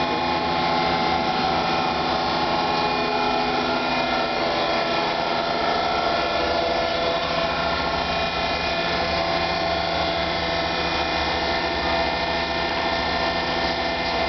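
TOS planer-milling machine fitted with a grinding head, running: a steady machine hum with several held whining tones that do not change.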